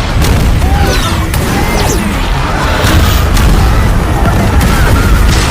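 Loud action-film sound effects: a heavy, continuous rumble with several booming impacts and sliding whines, over background music.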